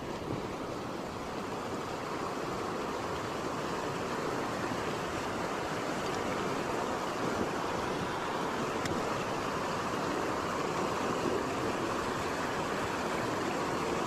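Water of a small creek waterfall pouring steadily.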